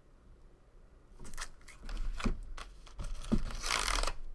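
Packaging being handled, crinkled and torn open by hand, with scattered clicks and rustles and a longer crinkling tear near the end.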